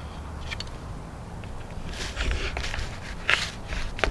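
Knife cutting and peeling the wax coating off a wheel of sheep's milk cheese: a few faint clicks and short scraping rustles, the loudest a little past three seconds in.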